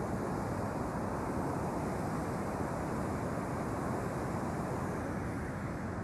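Steady rushing outdoor noise at an even level, with no distinct events.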